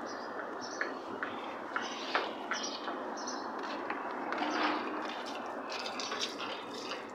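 Water sloshing and dripping in a plastic bucket as a wet puppy is rinsed, over a steady hiss, with scattered short clicks and brief high chirps.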